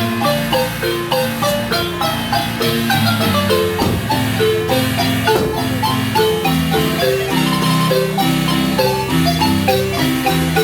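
Guatemalan marimba playing a lively tune, with quick melody notes over held notes rolled with rapid mallet strokes and a bass line.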